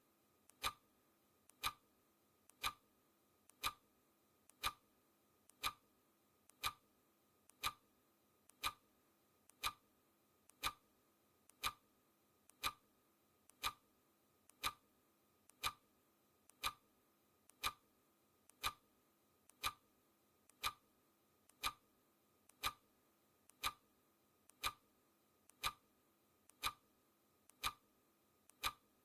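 Clock ticking, one tick every second at an even pace, each tick a sharp click with a fainter click just before it.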